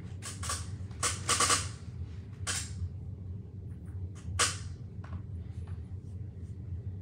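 Scattered sharp clicks and knocks, a quick cluster in the first second or two and single ones near two and a half and four and a half seconds in, over a steady low hum.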